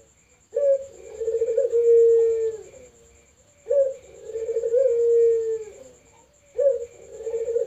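Puter (ringneck dove) cooing: three rolling coos about three seconds apart, each lasting a couple of seconds.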